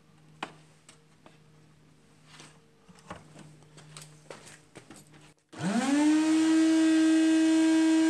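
Old shop vacuum's motor switched on about five and a half seconds in, whining up in pitch as it spins up and then running at a steady, loud whine, with a pillowcase filter over its exhaust. A few light clicks before it starts.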